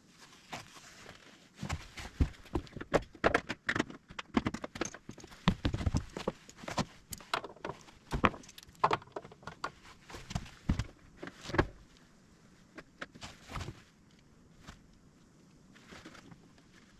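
Irregular knocks, taps and clatter of hands and tools handling lawnmower parts, starting about a second and a half in and easing off after about fourteen seconds.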